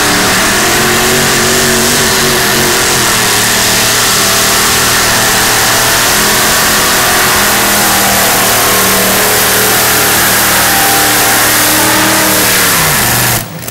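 Modified pulling tractor's engine at full throttle through a pull. The pitch climbs at first and then holds high with small wavers. Near the end the revs fall away and the sound cuts off suddenly.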